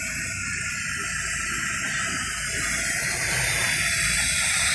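Pneumatic oil extractor hissing steadily as it runs on compressed air, sucking used engine oil out of a car's engine into its clear collection cup. The hiss grows louder about two and a half seconds in.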